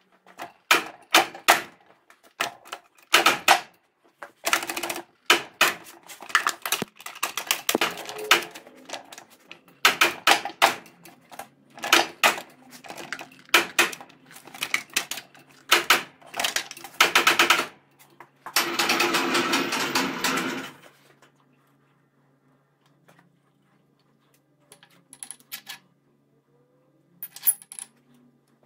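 Metal parts of a truck gearbox being worked apart with tools: a quick, uneven run of sharp knocks, taps and clinks, then a steady burst of noise lasting about two seconds, after which only a few faint taps remain.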